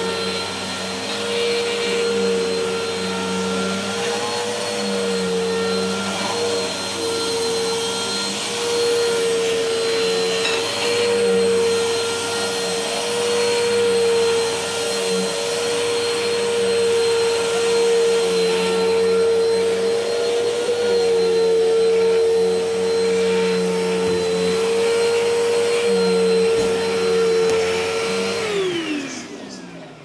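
Bissell Helix upright vacuum cleaner running steadily on carpet, with a steady motor whine. Near the end the motor is switched off and its whine falls in pitch as it winds down.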